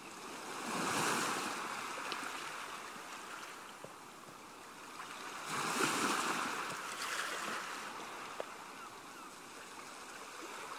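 Lake water washing and splashing against a boat, a rushing noise that swells about a second in and again around six seconds.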